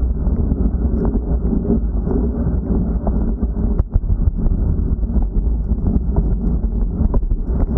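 Wind buffeting the microphone of an action camera on a moving bicycle at about 20 km/h: a steady low rumble, with light clicks and knocks from the bike rolling over the path.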